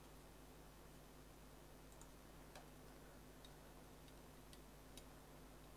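Near silence with a few faint, sharp ticks spaced irregularly through the second half: a steel painting knife tapping and scraping on the palette while mixing thick oil paint.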